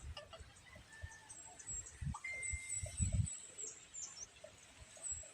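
Small birds chirping, many short high-pitched notes, some sweeping down, with one steady whistled note a little past two seconds in. Scattered low thumps sound under them, the strongest about three seconds in.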